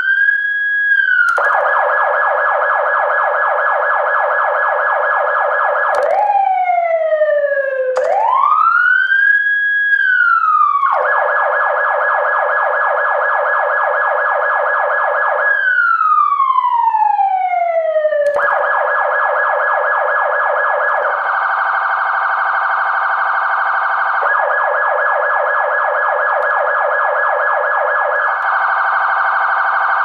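Emergency-vehicle electronic siren switching between modes: slow wails that sweep up and down in pitch alternate with stretches of a rapid warble, each change coming abruptly every few seconds.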